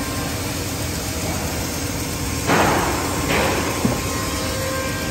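Steady hum of woodworking machinery running, with two short scraping knocks of heavy timber about halfway through as a sawn beam is moved against the stacked boards.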